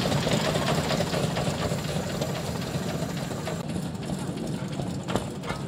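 Ruston Hornsby narrow gauge diesel locomotive's engine running steadily as it pulls away, fading gradually.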